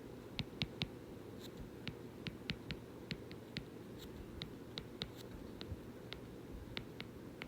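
Writing: a pen or stylus making a string of light, irregular ticks, about three or four a second, over a low steady room hum.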